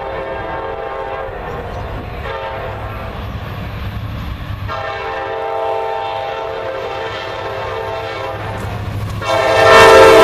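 Train horn sounding long blasts over the rumble of a passing train, with a clear break about two seconds in and another just under five seconds in. The horn gets much louder near the end.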